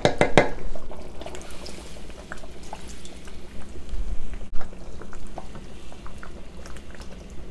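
Thick peanut soup simmering in a metal pot, with scattered small bubbling pops, after a few sharp clicks in the first half-second.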